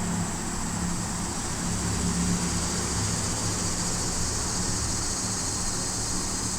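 A steady low engine-like hum, with a continuous high insect-like hiss over it.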